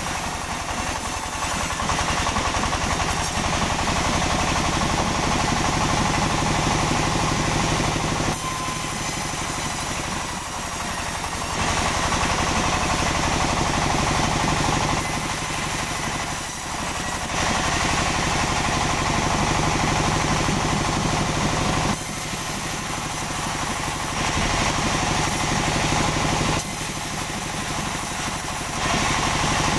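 Sawmill machinery running steadily. Slightly louder, brighter stretches of a few seconds alternate with quieter ones as the saw works through sengon logs.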